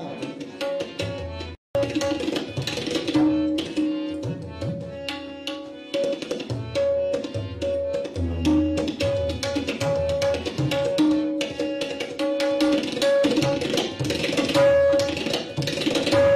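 Tabla solo: fast, dense strokes on the right-hand dayan with deep bass strokes on the left-hand bayan, some bent in pitch, over a harmonium holding a repeating melodic line. The sound drops out completely for a split second about one and a half seconds in.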